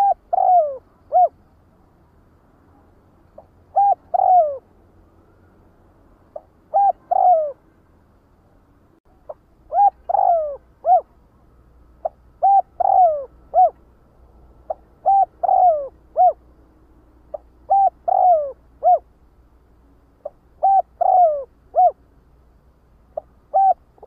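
Spotted dove cooing: short phrases of two or three low coos, the middle one sliding down in pitch, repeated every two to three seconds.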